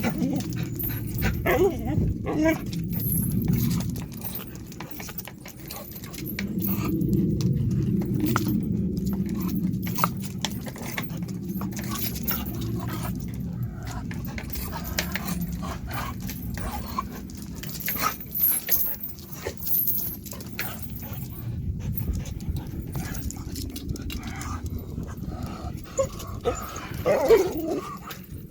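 A dog vocalising close by in long low stretches, with a short higher whine near the end, among scattered clicks and rustles.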